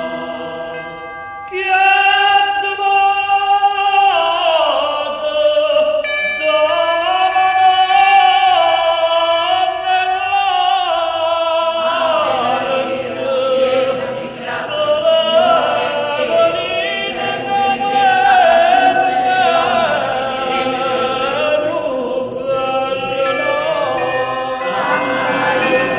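A 45 rpm vinyl single of a Neapolitan song playing on a turntable: a passage between the sung lines with orchestral music and choir-like voices, swelling up loudly about a second and a half in.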